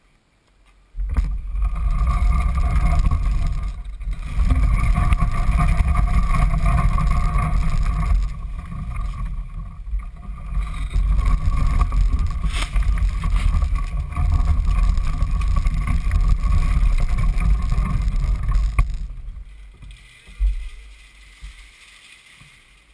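IAME X30 125cc two-stroke kart engine starting abruptly about a second in and running at idle, unevenly, before dying away a few seconds before the end.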